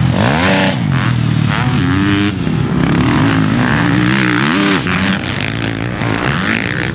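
Motocross bike engines revving up and down on the track, the pitch climbing and dropping again and again as riders accelerate and back off.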